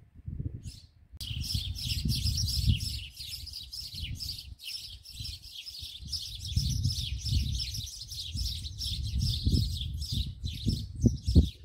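Many small birds chirping continuously in a dense chorus, starting abruptly about a second in, over an uneven low rumble.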